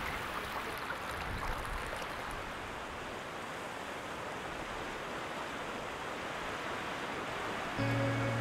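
Steady rush of flowing water, with music tones coming in near the end.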